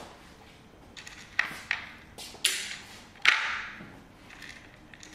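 A cat eating dry kibble from a plastic puzzle slow feeder: scattered clicks and taps of kibble and plastic, with two short rattles. The loudest is about three seconds in.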